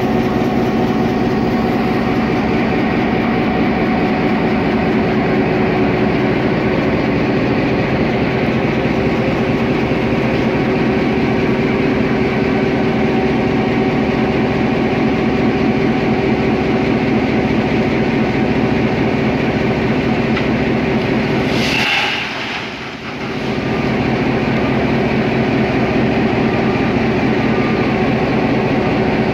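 Diesel locomotive GA8 5557's engine running steadily close by, a constant hum with strong steady tones. About three-quarters of the way through the sound briefly drops in level with a short hiss.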